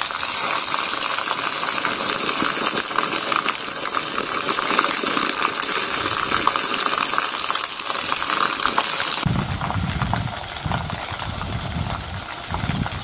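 Water from an old coal-exploration borehole gushing out of a rusty pipe under its own pressure, with no pump: a loud, even rush. About nine seconds in it changes to a quieter, more distant splashing, with a lower rumble, as the jet falls onto wet ground and into a shallow pool.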